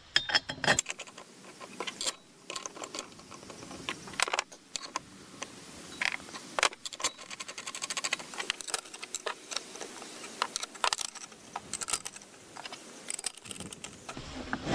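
Irregular light metallic clinks and taps of steel bolts, shims and spacer bars being handled and fitted by hand into a steel toe-roller bracket.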